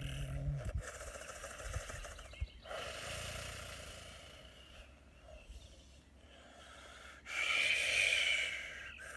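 A man's held low vocal tone ends in the first second, then long, forceful breaths are blown out through pursed lips, the loudest about seven seconds in.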